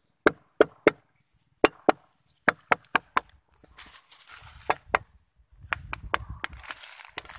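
Bolo knife tapping and chopping at a coconut palm trunk: about fifteen sharp, irregular wooden knocks in small clusters of two to four.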